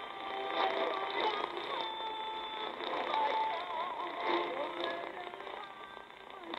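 Music from a shortwave broadcast heard through a C. Crane Skywave SSB 2 radio's speaker: a melody of long held notes, some wavering, over the hiss of AM shortwave reception, with the thin, muffled sound of its narrow audio band.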